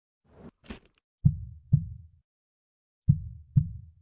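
Slow heartbeat sound effect: deep lub-dub double thumps, two beats about two seconds apart, after a short airy swish near the start.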